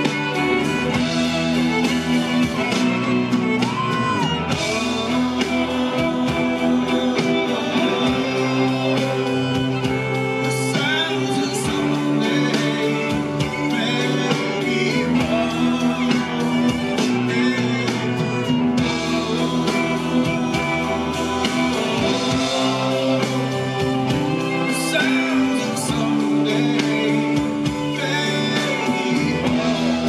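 A rock band playing live: electric guitar, bass guitar and drums, with a man singing lead vocals over them partway through.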